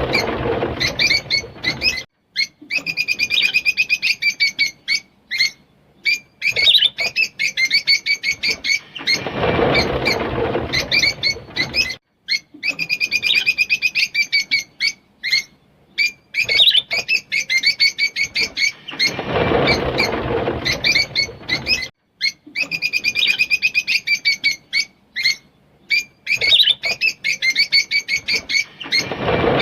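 Fischer's lovebird chirping in fast trains of sharp, high chirps, the same stretch repeating about every ten seconds. Each repeat carries a duller, noisier sound of about two seconds.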